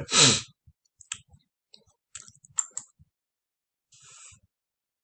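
A spoken word ends, then a few faint, sharp clicks at the computer as the slide is advanced, and a short breath near the end.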